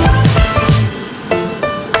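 Background music: a beat with heavy bass that drops out about a second in, leaving short plucked melody notes.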